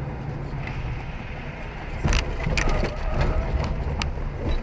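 Car's engine and road noise, then about two seconds in a sudden loud impact with crunching and clatter, and a few more sharp knocks: the sound of a road collision.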